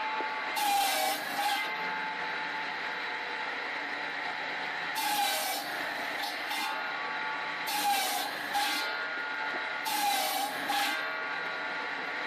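Firewood processor's circular saw running steadily, its blade cutting through logs four times. Each cut is a short burst of noise, about a second long, while the blade's tone dips briefly in pitch and then recovers.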